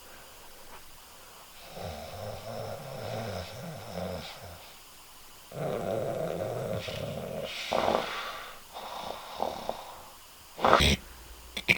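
A person making low, rasping snore-like vocal noises in two long stretches, then a sharp click near the end.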